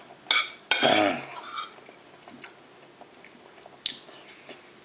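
A man's brief wordless vocal sound with falling pitch about a second in, then faint chewing with a few small clicks.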